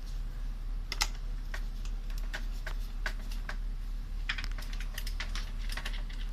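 Irregular light clicks and taps of hands handling the plastic parts of an electric fan being taken apart for cleaning, over a steady low hum.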